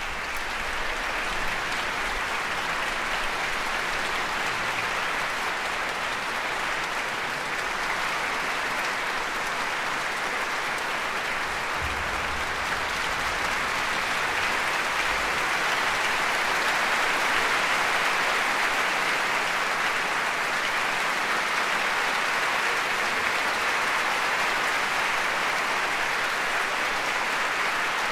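A large concert audience applauding steadily, growing slightly louder about halfway through.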